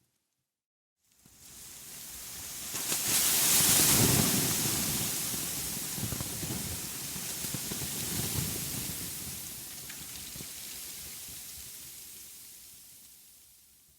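A rushing noise with no tone in it, fading in about a second in, loudest around four seconds in, then slowly dying away.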